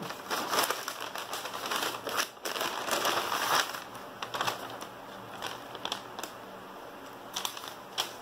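A shopping bag being handled and rummaged through, its contents crinkling and rustling, with louder stretches about half a second in and from two and a half to three and a half seconds in, then quieter rustling with a few sharp crinkles near the end.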